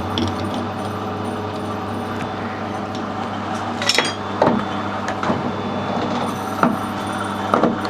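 Metal lathe running with a steady hum, with a few sharp metallic clinks from the work at the machine, the loudest about four seconds in.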